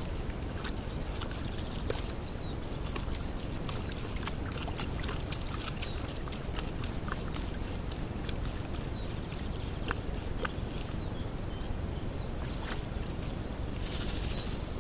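Wild boar wallowing in a muddy puddle: mud and water sloshing, with many short sharp clicks. Near the end comes a brief burst of spray as the boar shakes itself off.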